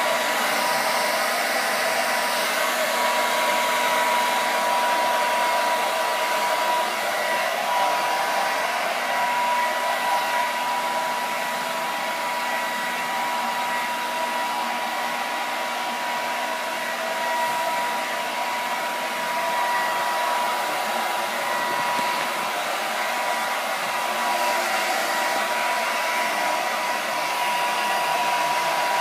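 Handheld hair dryer running steadily, a rush of air with a steady motor whine, blowing on a freshly painted crackle-glazed frame to dry the top coat so it cracks.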